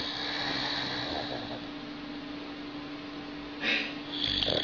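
A steady low hum and hiss in a pause between a sleeping dog's snores. A short snoring breath comes near the end.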